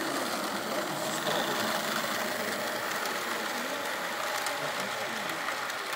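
Model railway diesel locomotive hauling a rake of coaches past along the track: a steady mechanical running sound of motor and wheels on rail, a little louder as it comes by.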